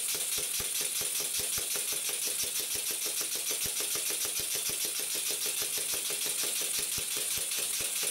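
Model single-cylinder horizontal mill engine running fast and steadily: a rapid, even beat of exhaust puffs and clicks over a constant hiss, its piston running without any packing.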